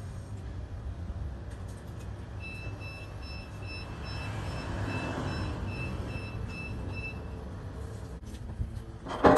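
Diesel engine of a lifting machine running steadily, with its reversing alarm beeping about three times a second for about five seconds as it backs up. A loud clatter comes right at the end.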